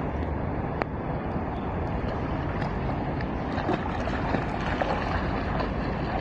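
Steady wind rumble on the microphone over light splashing and lapping of pool water as a person swims through it.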